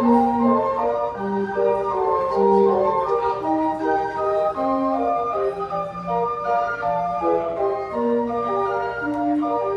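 Carousel band organ playing a lively tune in held, organ-pipe notes over a steady bass.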